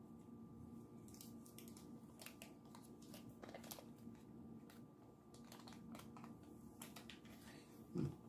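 Near silence, with faint scattered clicks and crinkles of things being handled in a kitchen, and one short low thump just before the end.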